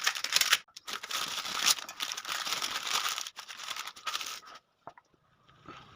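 Wrapping crinkling and tearing as it is handled and pulled off, stopping about four and a half seconds in.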